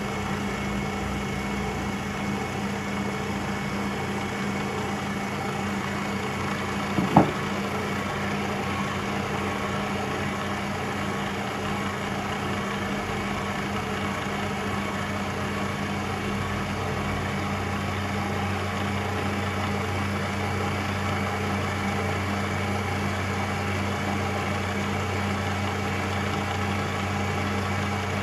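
Electric stand mixer motor running steadily while it mixes sponge cake batter, with a brief knock about seven seconds in.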